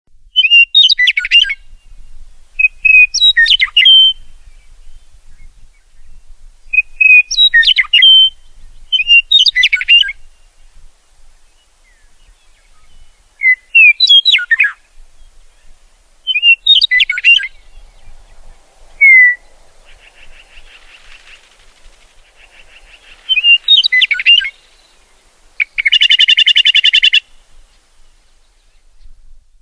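Meadowlark singing: a string of short, complex song phrases, each about a second long, repeated every two to three seconds. A faint buzzy chatter comes about twenty seconds in, and a loud, rapid buzzing chatter comes near the end.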